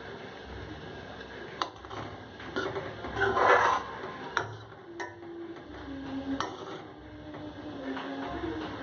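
Metal spoon stirring in an aluminium pot of frothing dry-fish broth: several sharp clicks as it knocks against the pot, and a louder scraping stretch about three and a half seconds in.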